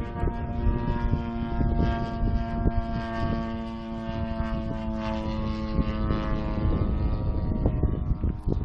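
Engine of a 35%-scale Sbach radio-controlled aerobatic model airplane flying overhead: a steady drone at one pitch that fades near the end, with wind rumbling on the microphone.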